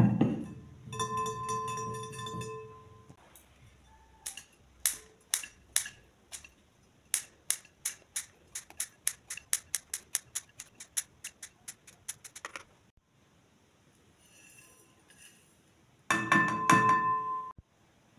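A bowl set down on a wooden table with a thump and a ringing note. Then scissors snip a bar of soap into it, a long run of quick sharp clicks, about three to four a second. Near the end a ceramic jug knocks against the bowl and it rings again.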